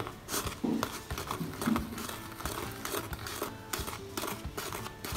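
Metal teaspoon stirring thick royal icing in a plastic bowl: quick, irregular clicks and scrapes of the spoon against the bowl.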